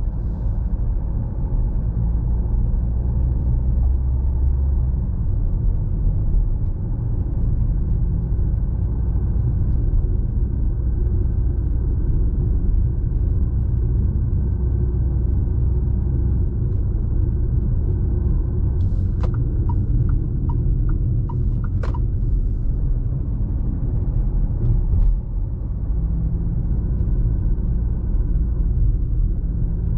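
Fiat Toro Volcano's 2.0 turbodiesel engine and road noise heard from inside the cabin while driving, a steady low rumble. A short run of faint ticks comes about two-thirds of the way through.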